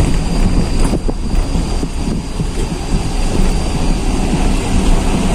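A car driving slowly along a rough, narrow track, heard from inside the cabin: a steady low rumble of engine and tyres on the uneven road, with some wind on the microphone.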